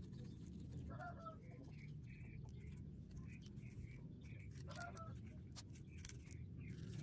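Faint outdoor background with a steady low rumble and short bird calls, two of them clearer, about a second in and near five seconds. In the second half come scattered crinkling clicks from a plastic bag of cement being handled over the mould.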